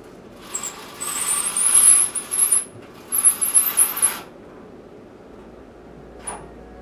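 Two harsh bursts of scraping noise with a high wavering squeal on top, the first about two seconds long and the second about a second, then a brief faint high squeak near the end.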